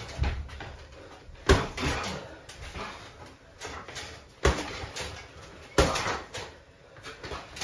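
Boxing gloves landing on an opponent's gloved guard during sparring: a series of sharp thuds, the three loudest about a second and a half, four and a half, and six seconds in, with lighter knocks between.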